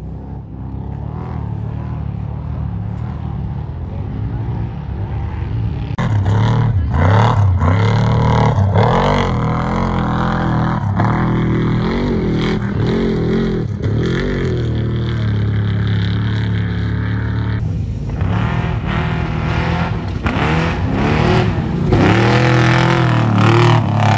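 Off-road race trucks' engines running and revving, the pitch rising and falling. The sound changes abruptly about six seconds in and again near eighteen seconds, as if separate stretches were joined.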